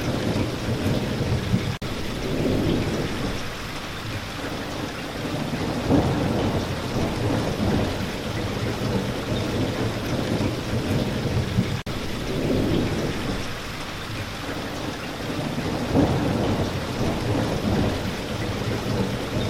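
Steady heavy rain with low rumbles swelling and fading every few seconds. The sound cuts out for an instant twice.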